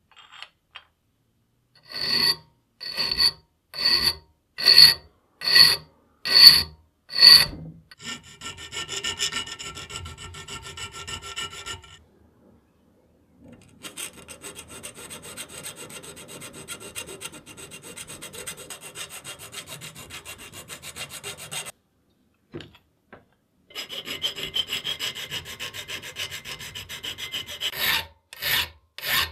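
Hand file working metal: seven slow strokes, a little over one a second, then long stretches of fast, fine rasping, with slow separate strokes again near the end.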